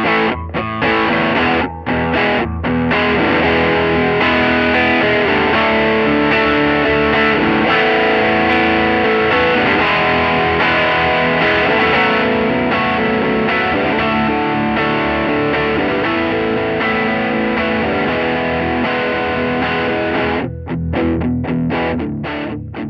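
Looped electric guitar chords from a Gretsch Electromatic hollowbody, played through the Bad Cat Siamese Drive overdrive into a mic'd Peavey Classic tube amp, giving a crunchy distorted tone. The tone shifts while the pedal's knobs are turned, losing some treble about halfway through. Near the end the playing turns choppy with short gaps.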